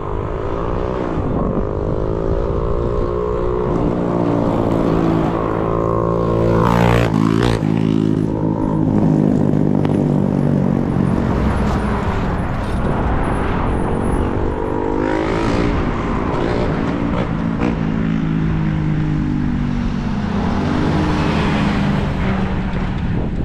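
Road vehicles passing close by, among them a pickup truck towing a utility trailer, their engines running with a pitch that rises and falls as they go by.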